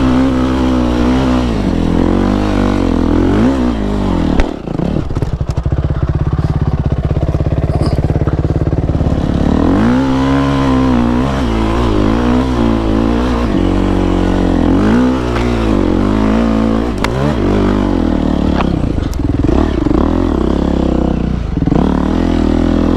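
2008 Yamaha YZ450F's single-cylinder four-stroke engine revving up and down as the dirt bike climbs a steep hill. About four seconds in there is a sharp knock, and the engine holds a steady low note for a few seconds before revving up again.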